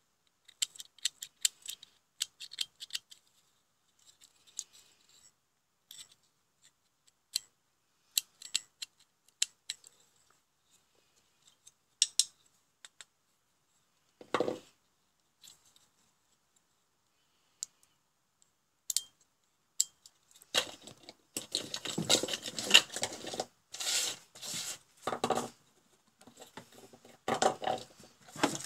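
Hand tools and small parts handled on a workbench: scattered sharp clicks and ticks of a screwdriver against the terminals of a relay circuit board, and a dull knock about halfway. From about two-thirds in comes a dense, louder run of scraping and clattering as parts and plastic bits are pushed about on the bench.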